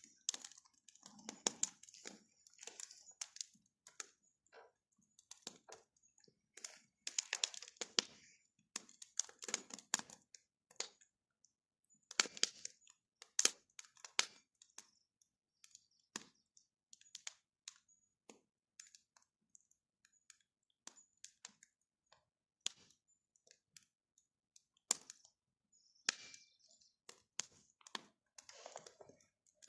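Wood bonfire crackling, with irregular sharp pops and cracks coming in uneven clusters.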